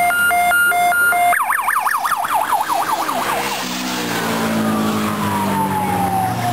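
Police car siren: a two-note hi-lo alternation that switches about a second in to a fast yelp, then gives way to a slow falling wail. A vehicle engine grows louder under it in the second half.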